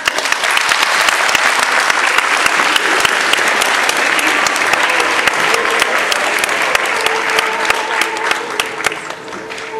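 Audience clapping loudly after a scene ends in a blackout. A held musical note starts under the applause in the second half, and the clapping eases a little near the end.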